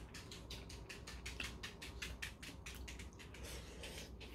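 Close-miked chewing of a soft mouthful of tomato beef bulgogi and rice: quick, regular wet smacking clicks, several a second.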